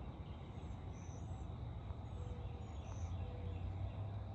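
Faint, short high-pitched bird chirps, a few every second, over a steady low hum.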